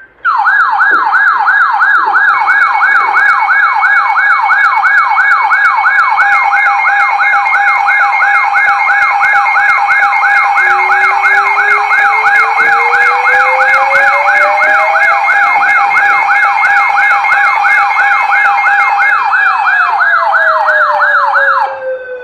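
Several weather alert radios sounding their alarms at once in answer to a NOAA Weather Radio alert: a loud warbling siren tone that sweeps up and down about two and a half times a second, over steady high and low tones. A slower tone rises over several seconds and then falls as the alarms cut off near the end.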